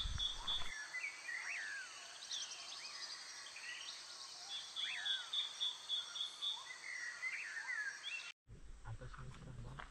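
Birds calling with short rising and falling chirps over an insect's pulsed trill of about four or five pulses a second, which comes and goes. The sound cuts off abruptly about eight seconds in, followed by faint rustling.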